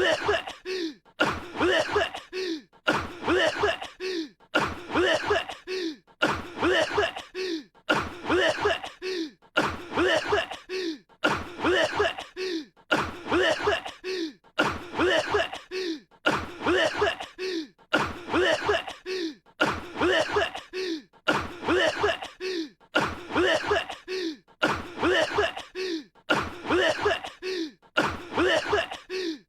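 An anime character's voice coughing, the same short cough clip looped over and over, about once a second.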